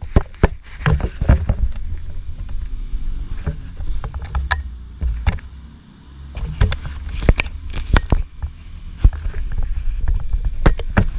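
Irregular sharp knocks and clanks of metal parts and tools being handled as a motorcycle front fork leg is set up and braced, over a low rumble.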